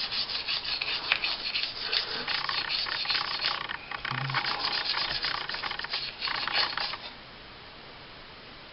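A small cleaning brush scrubbing a solvent-sprayed pistol rail in quick back-and-forth strokes, stopping about seven seconds in.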